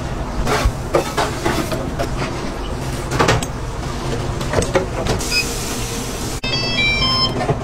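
Metal clanks and knocks of UFO burger press lids, stainless-steel domes being swung shut and clamped down over the buns, over a steady background hum. Near the end a short run of high beeping tones comes in.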